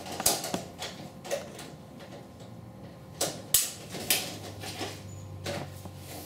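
Handling sounds of a vinyl siding panel being marked and lifted on a saw table: scattered light clicks and taps, with one sharper click a little past the middle.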